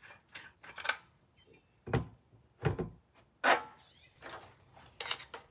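Metal clicks, scrapes and a few dull knocks as a Silencerco Hybrid 46M suppressor is unscrewed and taken off a .300 Blackout AR carbine: about six separate sounds, with a longer scrape about three and a half seconds in.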